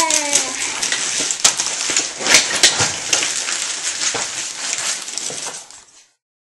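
Handling noise: a crackling rustle with scattered sharp clicks and knocks, stopping near the end.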